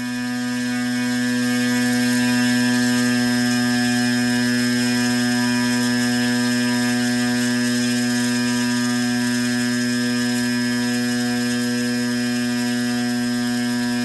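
Electric RC-aircraft motor spinning its propeller at full throttle and drawing about 16 amps, a steady whine over a low hum. It swells over the first couple of seconds, then holds at one pitch.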